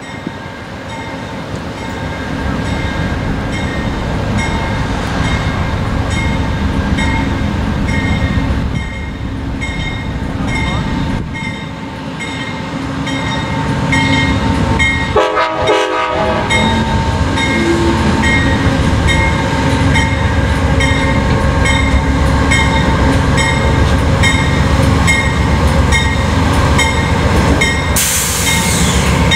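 Amtrak GE P42DC diesel locomotive approaching and pulling in. Its 16-cylinder diesel engine rumbles louder as it nears, a bell rings steadily, and a short horn blast of about a second sounds about halfway through. A burst of hiss comes as the locomotive draws alongside near the end.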